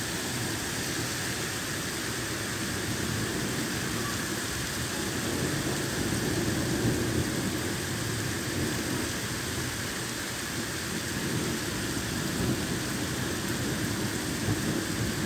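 Heavy thunderstorm downpour: a steady, even rush of rain falling on pavement and on a road running with water.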